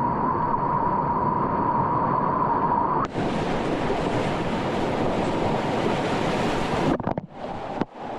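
Whitewater rapids rushing loud and steady, heard close through a kayaker's action-camera microphone with some wind on it. The sound changes abruptly about three seconds in, turning brighter and fuller, and breaks up with sudden drops near the end as the footage cuts.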